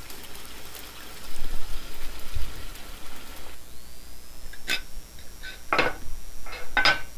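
Red-hot high-carbon steel ashiko claws being oil-quenched: a steady crackling sizzle of the oil, strongest about a second in, that cuts off after about three and a half seconds. Then a few sharp knocks with a short metallic ring as the forged steel bands are set down on the floor.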